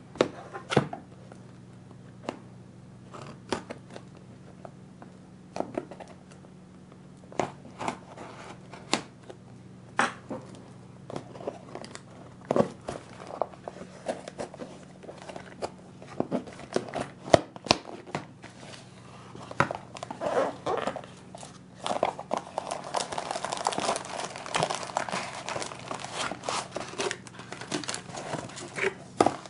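Cardboard box being handled and opened by hand: scattered taps, clicks and scrapes of fingers and flaps on the carton, then, about two-thirds of the way through, steady rustling and crinkling of the packaging inside.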